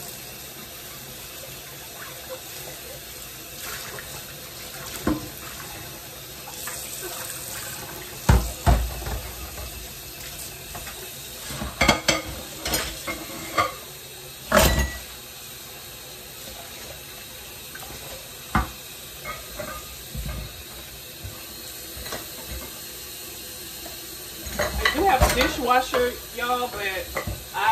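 Kitchen tap running steadily into a stainless steel sink while dishes are washed by hand, with a few sharp knocks and clinks of a glass bowl and a ceramic mug against the sink.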